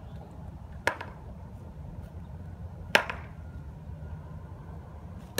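Two sharp whacks from a small child's blue plastic toy baseball bat, about two seconds apart, the second one louder.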